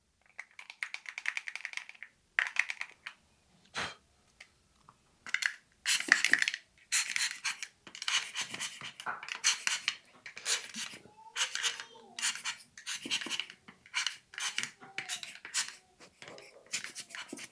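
Repeated short hissing strokes, roughly one a second, as a Hollyland wireless microphone is cleaned inside with a small brush and air blower.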